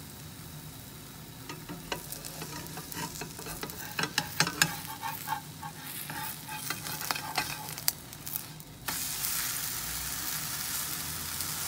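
Metal slotted spatula scraping and clicking against a non-stick frying pan as it is worked under a gram-flour omelette, over a light sizzle. About nine seconds in, the omelette is flipped and a louder, steady frying sizzle starts suddenly as the uncooked side meets the hot pan.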